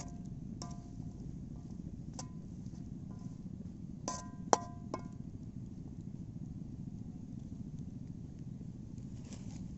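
Metal camp cookware clinking: about five sharp, ringing metallic taps, the loudest about four and a half seconds in. A steady low rumble runs underneath.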